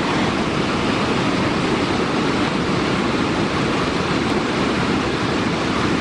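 Swollen floodwater rushing, a steady loud noise with no let-up.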